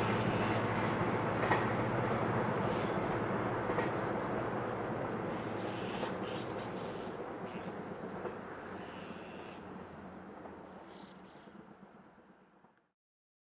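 Train rumbling along the track and fading steadily as it moves away, with a few clicks in the first few seconds and birds chirping briefly. The sound cuts off just under thirteen seconds in.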